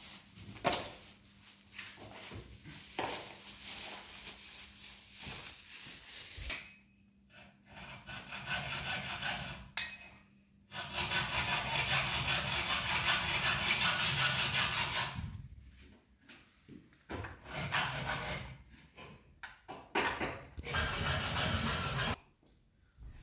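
Irregular scraping and rubbing noises, with a longer, louder stretch of steady scraping in the middle and shorter strokes before and after it.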